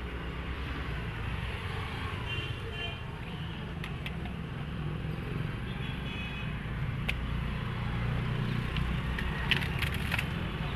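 Roadside street background: a steady low rumble of traffic, with a few sharp clinks of utensils about four and seven seconds in and a quick cluster of them near the end as steel bowls and a foil tray are handled.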